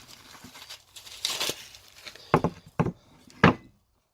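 Packing material being torn and crinkled as a part is unwrapped, with three sharp knocks in the second half.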